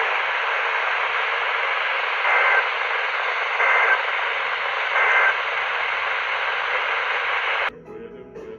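Steady radio static hiss, broken by three short digital data bursts about a second and a half apart: the EAS end-of-message tones that close a weather radio warning. Near the end the static cuts off suddenly and quieter music begins.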